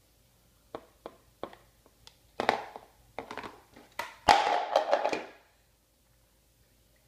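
A baby's plastic bowl is tapped a few times, then thrown down and clattering. The loudest clatter comes a little past four seconds in and lasts about a second.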